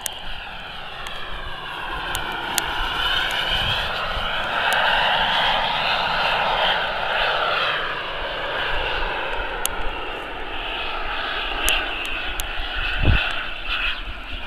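Boomerang Sprint radio-controlled model jet flying by, its engine whine rising and falling in pitch as it passes. A low thump comes near the end.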